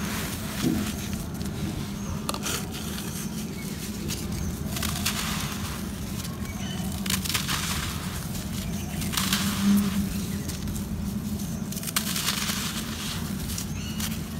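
Dry red soil crumbled between bare hands, the grains hissing and trickling as they pour out in several separate runs, over a steady low hum.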